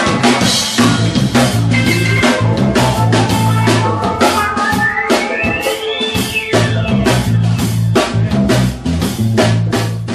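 A dub band playing live: a steady drum beat over a heavy bass line, with a tone that slides slowly upward for about three seconds and then falls away.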